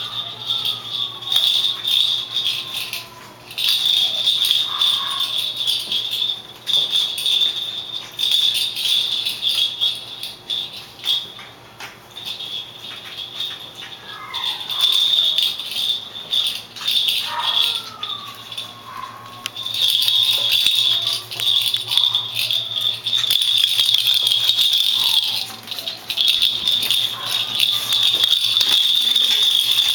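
A pink plastic rattle ball toy rattling in spells of a few seconds as Maltese puppies push it across a tile floor, with small clicks and knocks in between. A few brief high puppy whines are heard now and then.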